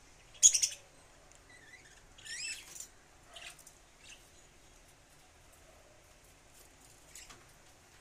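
Budgerigar calls: a sharp, loud chirp about half a second in, a wavering warbled call around two seconds in, then a few shorter, fainter chirps.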